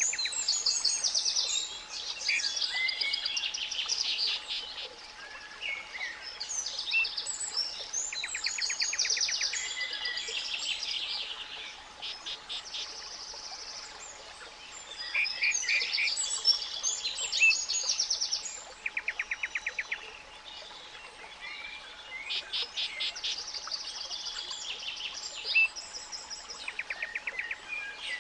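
Several songbirds singing over one another in chirps and rapid trills, over a steady 852 Hz pure tone and a faint hiss underneath.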